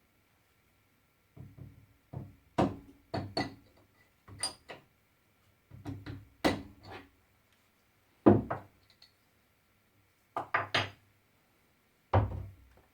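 Metal drill-press parts and tools being handled: a series of separate knocks and clinks, the loudest about eight seconds in.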